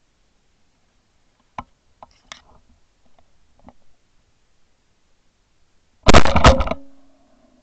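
A shotgun firing, a sudden, very loud blast at close range about six seconds in, preceded by a few faint clicks and followed by a short, faint pitched tone.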